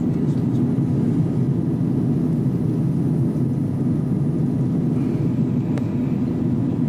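Steady low drone inside an airliner cabin in flight: jet engine and airflow noise heard from a window seat over the wing.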